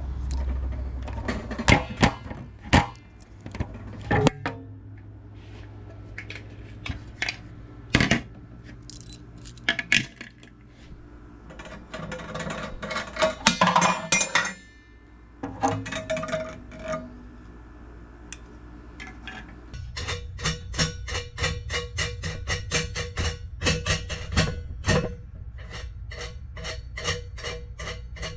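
Background music over scattered sharp clinks and knocks of a spiral gumball machine's parts being handled. About two-thirds through, the music turns into a fast, regular beat.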